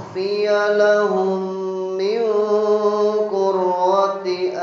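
A man's voice reciting the Qur'an in melodic chant, drawing out long, wavering held notes in short phrases.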